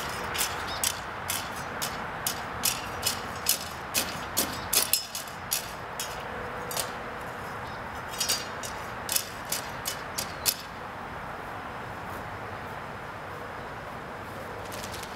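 Broom sweeping dirt and debris on the ground, a quick, uneven run of short brushing strokes that stops about two-thirds of the way through.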